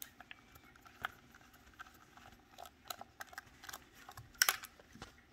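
Faint, irregular clicks and light scrapes of a small Torx screwdriver working tiny screws loose inside a Mercury SC1000 gauge's plastic housing, with a sharper cluster of clicks about four and a half seconds in.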